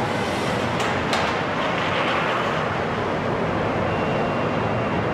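Truck assembly plant floor din: a steady wash of machinery and conveyor noise, with two sharp clanks about a second in and a faint thin high whine from about four seconds in.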